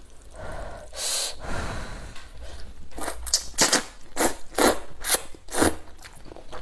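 A person slurping a mouthful of noodles: a breathy rush of air about a second in, then a quick run of six or seven short, sharp slurps over about three seconds.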